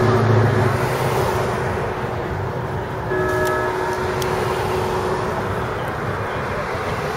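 Steady street traffic noise, with a brief horn toot about three seconds in.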